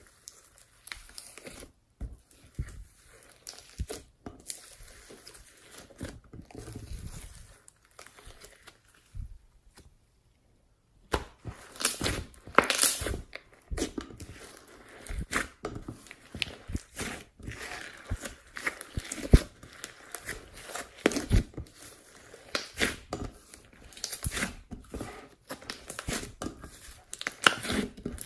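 Slime being squeezed, stretched and poked by hand, giving irregular crackling, clicking and popping sounds. It cuts to silence for about a second around ten seconds in, then the crackling comes back louder and denser.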